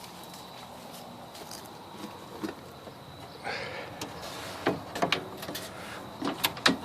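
Quiet handling noise from a car radiator being lifted and set down into the engine bay, with a few short knocks and clicks near the end.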